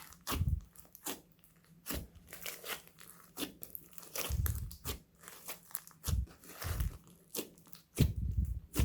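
Homemade slime being squeezed and kneaded by hand, giving irregular sticky clicks, crackles and pops with the odd low squelch.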